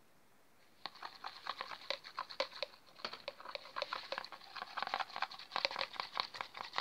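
A stirring stick mixing black paint into clear glue in a plastic bowl: a rapid, irregular run of sticky squelches and clicks, starting about a second in.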